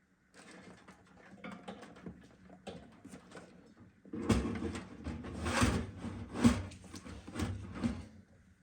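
A PC power supply being worked into a metal computer case: faint clicks and rustling, then from about four seconds in a run of louder knocks and scraping as the unit is pushed and shifted into place.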